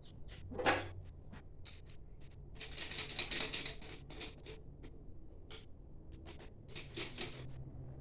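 Irregular clicks and taps with short scraping sounds, just under a second in and again around three seconds in, from tools and metal parts being handled in engine repair work.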